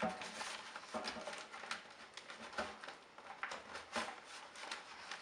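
Rustling and crinkling of a dust bag as it is handled and its collar is pushed over the suction inlet inside a shop vacuum's tank, with irregular small knocks.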